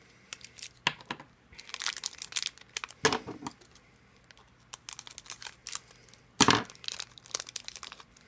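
Small plastic blind-bag wrapper being crinkled and torn open. It makes a run of crackles and clicks, with two louder rips about three and six and a half seconds in.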